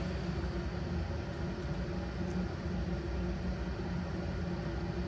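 Steady low mechanical hum of a running fan, with an even airy hiss over it.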